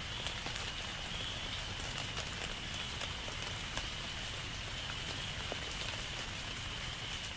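Steady rain falling, with many small scattered drop ticks and a faint steady high tone running through it.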